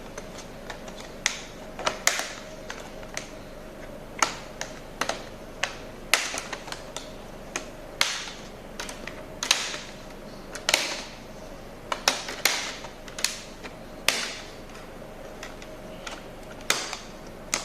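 Plastic snap-fit clips of a Lenovo laptop's case being pried and pulled apart: irregular sharp clicks and snaps, some with a brief scrape, coming every second or so. A faint steady hum runs underneath.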